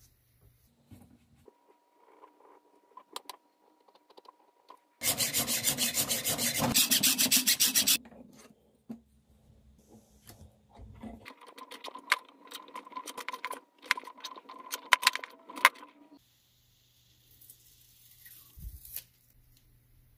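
A steel kitchen spoon clamped in a bench vise being worked with a hand tool: about three seconds of loud, fast, rhythmic rasping strokes on the metal, followed by quieter scraping and scattered sharp metallic ticks.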